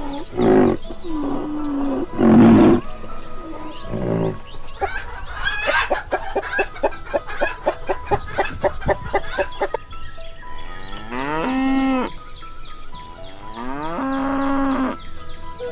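A string of farm-animal sounds over soft background music: loud calls in the first few seconds, then hens clucking rapidly around the middle, then a cow mooing twice, two long drawn-out moos near the end.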